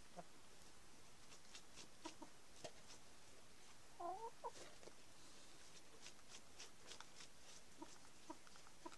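Chickens clucking softly: a few short, faint clucks scattered through, with a slightly louder call about four seconds in. Faint clicks and scratches in between.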